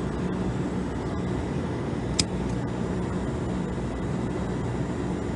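Steady hum of running machinery, with one sharp click about two seconds in.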